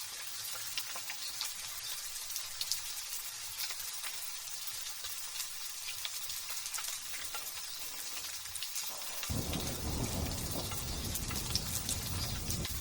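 Light drizzle pattering, a steady hiss with many small drop ticks; about nine seconds in, a low rolling rumble of thunder sets in and carries on under the rain.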